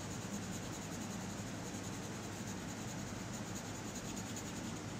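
Coloured pencil scratching on paper in steady, rapid back-and-forth strokes as a drawing is shaded in.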